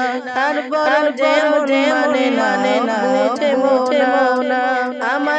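A boy singing a qasida, an Islamic devotional song, with a wavering, ornamented melody.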